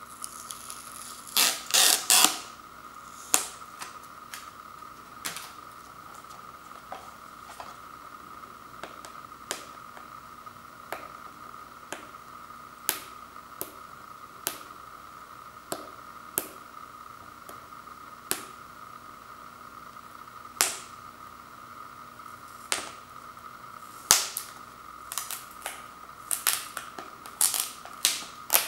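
Cellophane shrink-wrap on a DVD case being picked at and peeled: sharp plastic crackles, a quick cluster soon after the start, then single crackles every second or two, and a denser run near the end. A faint steady high hum runs underneath.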